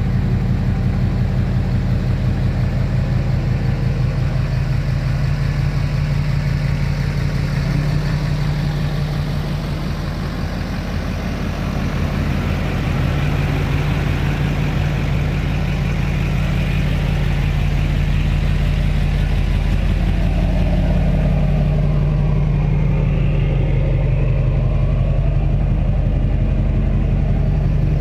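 Chevrolet Duramax LBZ 6.6-litre V8 turbo-diesel with compound twin turbos, idling steadily, a little quieter around ten seconds in.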